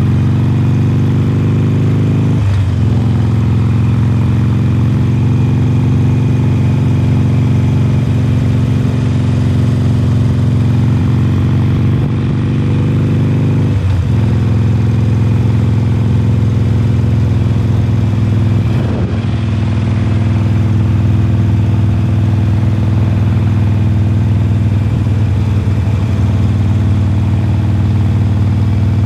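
A 2020 Harley-Davidson Forty-Eight's 1200 cc air-cooled V-twin, fitted with Khrome Werks slip-on mufflers, running steadily under way while riding. The note breaks briefly about two and a half seconds in and again about halfway through.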